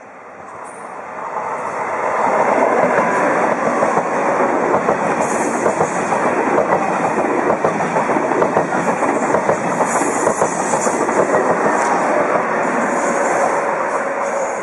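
French TGV high-speed train passing at speed: a rush of wheel and wind noise that builds over the first two seconds, then holds loud and steady, with rail clatter in it.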